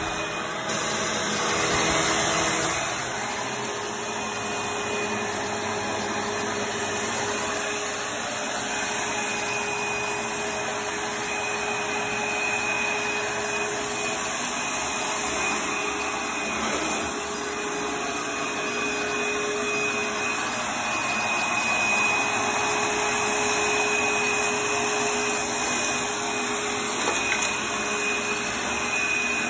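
Dirt Devil Breeze 12-amp upright vacuum cleaner running while it is pushed back and forth over carpet: a steady motor rush with a constant high whine over it.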